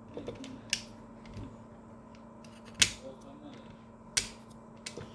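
Sharp clicks and knocks of hard plastic parts from a Kyocera FS-1130 laser printer's fuser unit being handled and set down, four loud ones a second or two apart with lighter taps between, over a faint steady hum.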